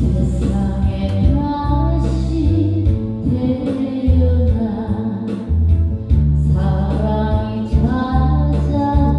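Korean trot song: a voice singing a slow, plaintive melody over backing music with steady bass notes.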